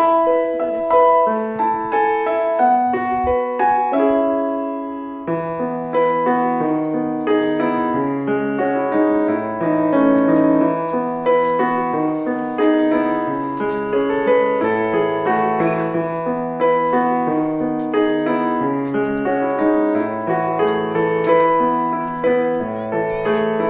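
Background piano music: a gentle melody over chords, with a lower bass part joining about five seconds in.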